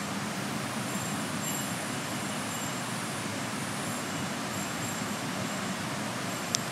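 Steady rushing outdoor ambience with faint high tones that come and go, and one sharp click near the end.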